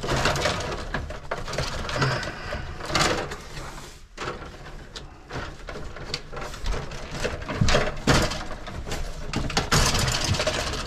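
Gloved hands pulling and shifting bundles of old branch-circuit wires in a residential breaker panel: an irregular run of rustles, scrapes and light knocks, briefly quieter about four seconds in.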